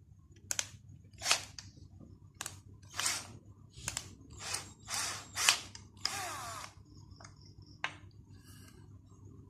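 Cordless battery drill driving a screw to fix a wall socket box, running in a series of short bursts, then one longer run of under a second about six seconds in.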